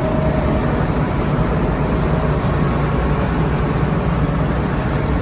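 Combine harvester engine running steadily while the machine drives slowly, a constant low hum.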